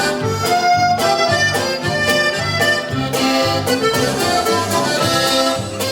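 Accordion-led Latin dance music with a steady bass beat.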